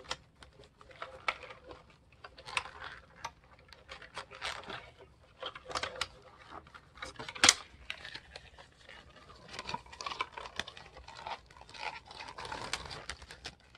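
Punched paper pages rustling and scraping against metal double-loop binding wire as they are worked onto the coils, with scattered small clicks and one sharp click about halfway through.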